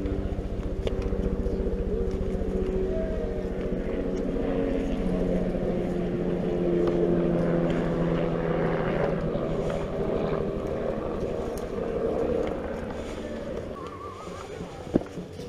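A steady engine drone, its pitch sliding slowly lower, fading over the last few seconds.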